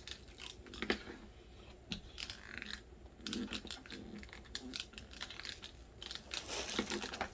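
Hands rolling and working play dough on a surface: scattered small taps, clicks and rustles.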